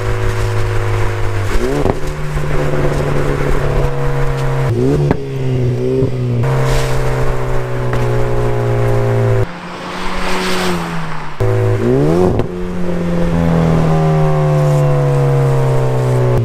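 Turbocharged four-cylinder of a Cadillac ATS with the muffler deleted, running loud while driving. It holds steady notes broken by several quick rises in pitch, then slowly falls in pitch near the end. A brief hiss stands in for the engine note about ten seconds in.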